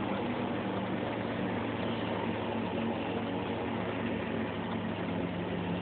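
Steady drone of road and engine noise inside the cab of a Chevy K5 Blazer as it is towed down a paved road, with a low hum under the rush of tyres and wind.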